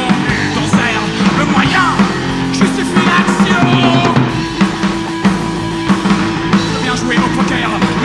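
Punk rock band playing live, with the drum kit prominent: a steady beat of bass drum and snare under sustained low notes.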